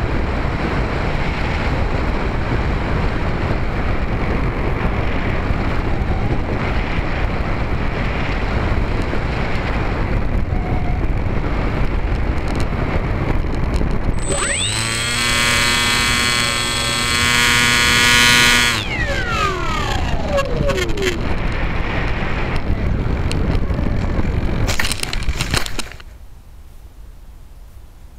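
Wind rushing over a Bixler 2 RC foam plane's onboard camera as it flies low. About halfway through, its electric pusher motor and propeller run up to a steady whine for about four seconds, then wind down in a falling whine. A couple of knocks come as it lands in grass, and the wind noise stops.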